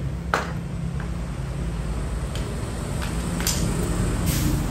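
Metal hammers being handled and set down, a handful of short sharp knocks and clinks, over a steady low rumble.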